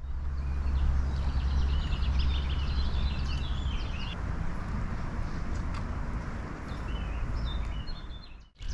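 Small birds chirping and twittering over a steady low outdoor rumble. The chirping is busiest in the first half and comes back briefly near the end.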